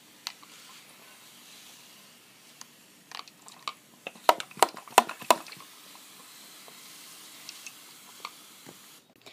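Hand-pump plastic mist sprayer spraying water into a glass terrarium: a run of short, sharp spritzes, about three a second, between three and five and a half seconds in, over a faint hiss.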